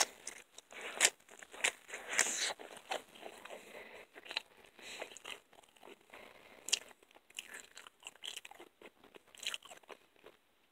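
A person chewing pizza close to the microphone: irregular bites and crunches of the crust, the sharpest about a second in and again near seven seconds.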